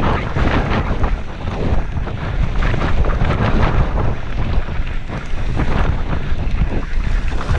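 Wind buffeting the microphone of a mountain biker's helmet camera on a fast descent, with the tyres rumbling and the bike rattling and knocking over a rough, rocky dirt trail.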